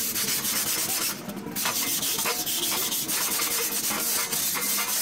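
Sandpaper rubbed by hand along a rusty steel square-tube frame, rust being sanded off: a steady scratchy rasp of back-and-forth strokes, with a short pause about a second in.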